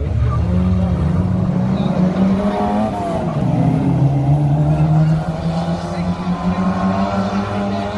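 1450-class race cars' engines running at speed, several revving together. The main engine note falls about three seconds in, then holds steady.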